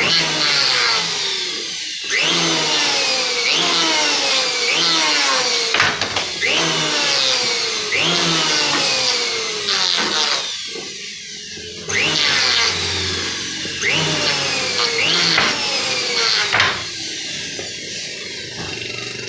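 Handheld electric wood planer cutting in repeated back-and-forth passes, about one every two seconds. Its whine jumps up at the start of each pass and then slides down in pitch before the next one.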